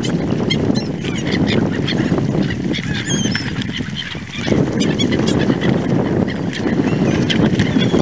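A flock of mute swans feeding in shallow water: a dense jumble of low calls and splashing, with gulls' brief high cries now and then.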